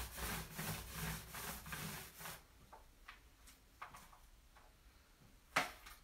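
Paint roller rolled back and forth over a countertop covered in wet, gritty stone-fleck coating. It makes a rhythmic rubbing of about three strokes a second that stops after about two seconds. A few light taps follow, and there is a sharp knock near the end.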